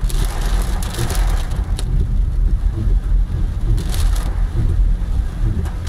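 Car driving along a flooded road in hurricane rain, heard from inside the cabin: a loud, deep, steady rumble of tyres, engine and wind, with short hissing bursts of water spray about a second in and again near four seconds.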